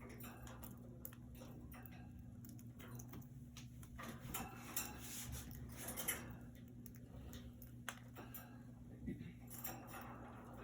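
Budgies moving about a wire cage: faint scattered clicks, light metallic taps and scratches, a little busier about halfway through, over a steady low hum.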